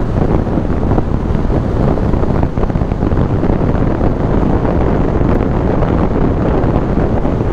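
Wind rushing over the microphone on a moving road vehicle, a steady loud rumble with road noise beneath.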